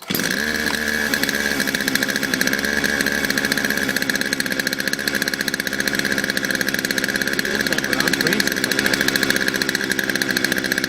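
Two-stroke chainsaw engine catching right at the start and then running steadily at idle, off the trigger, as it warms up after a hard start.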